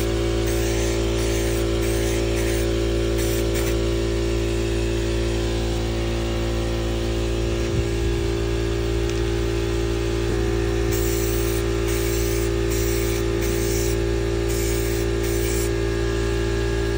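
Aerosol spray-paint can hissing in short repeated bursts, a few near the start and many more in the second half, over a steady low hum.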